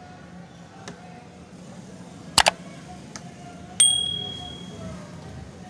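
Subscribe-button sound effect: a sharp double mouse click, then a single bright bell ding that rings out for about a second.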